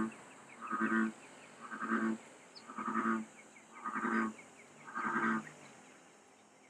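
American bullfrog calling: a series of six deep croaks, about one a second, then stopping a little after five seconds in.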